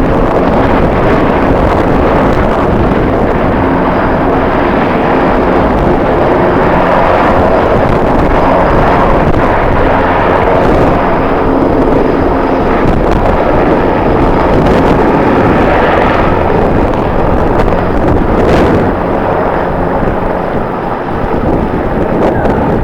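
Jet airliner engines running loud and steady, mixed with strong wind buffeting the microphone.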